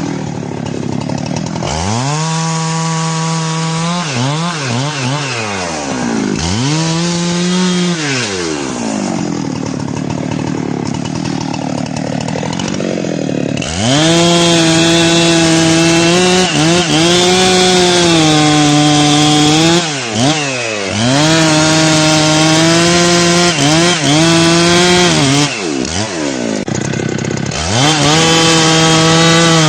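Chainsaw cutting into a tree. It revs up and falls back several times, then from about halfway runs louder at high speed, dipping briefly a few times.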